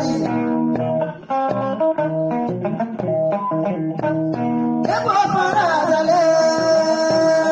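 Praise-song music: a plucked guitar line with bass playing short repeated notes, then a singing voice with sliding pitch comes in about five seconds in.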